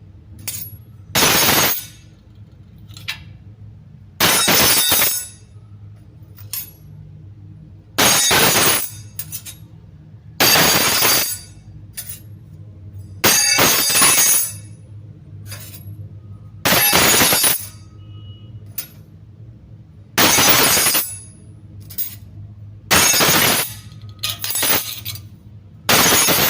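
Metal spoon clinking and clattering against a hard surface in repeated short bursts of under a second each, about every two to three seconds, roughly nine times.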